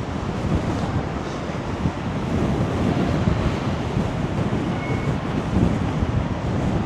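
Strong wind buffeting the microphone in uneven gusts over the wash of a rough sea's surf.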